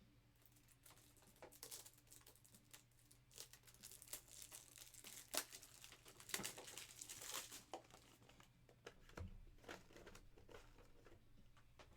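Faint crinkling and rustling of plastic wrapping as trading cards are unwrapped and handled, with small clicks and crackles, busiest in the middle.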